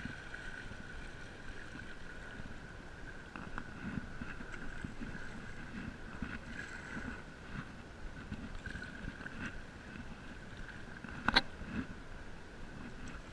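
Stand-up paddle strokes dipping and pulling through calm water beside an inflatable paddle board, with soft water swishes about once a second. A single sharp knock, the loudest sound, comes near the end.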